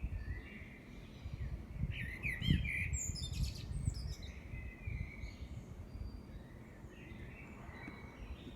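A songbird singing a quickly changing run of different phrases, busiest a couple of seconds in, over a low rumble.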